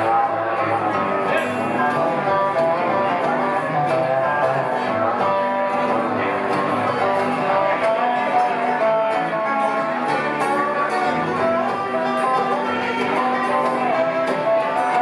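Acoustic bluegrass band playing an instrumental passage: five-string banjo, fiddle and acoustic guitar together at a steady level.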